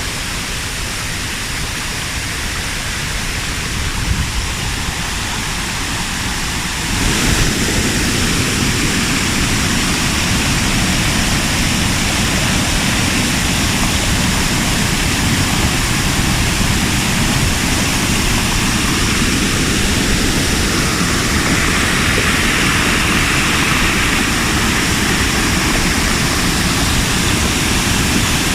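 Steady rushing of a waterfall, an even roar of falling water that gets louder about seven seconds in.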